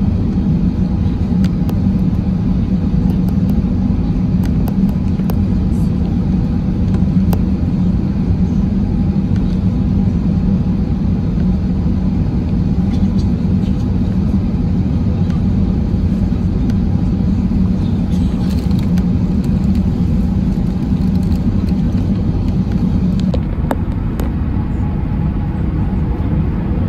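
Steady rumble of airflow and engine noise inside the cabin of an Airbus A380 descending on approach with its flaps extended. The deep hum eases slightly near the end.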